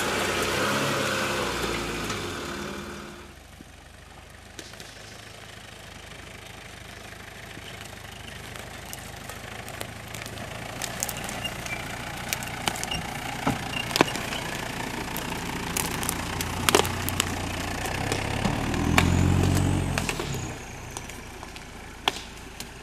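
Off-road 4x4 engines running at low speed while crawling over muddy forest ground, with many sharp clicks and knocks partway through and the engine revving up near the end before easing off.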